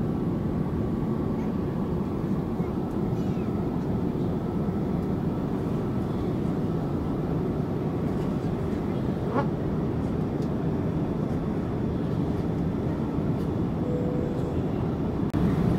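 Steady low rumble of airliner cabin noise, the engine and airflow sound inside a Boeing 787-8 Dreamliner in flight. A faint short tone is heard near the end.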